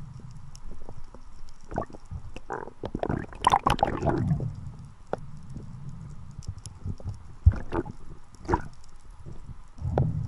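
Water gurgling and churning around a camera at or just under the sea surface, with a louder rush of water about three to four seconds in. Sharp knocks near 7.5 and 8.5 seconds come as the speared grouper and spear are handled.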